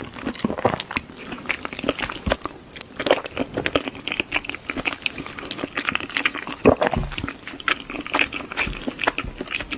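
Close-miked wet chewing and slurping of creamy, cheesy pasta: a dense run of sticky mouth clicks and smacks.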